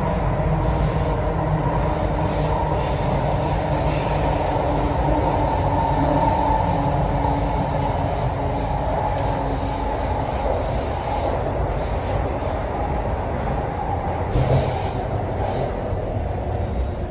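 MTR Kwun Tong Line C-train metro car running at speed, heard from inside the carriage: a steady rumble with a higher running tone over it. A brief louder bump comes about fourteen seconds in.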